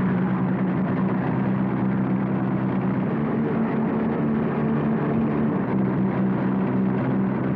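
Car engine running steadily with road noise, an even drone that holds the same pitch throughout.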